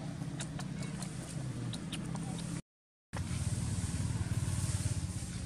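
A motor vehicle's engine running with a low, steady hum, with a few faint clicks in the first couple of seconds. The audio drops out completely for about half a second midway, then the hum resumes.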